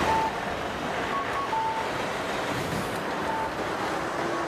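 Strong wind carrying volcanic ash, a steady rushing noise with wind buffeting the microphone. A few short, faint beeps sound over it, twice in the first two seconds and once more past the three-second mark.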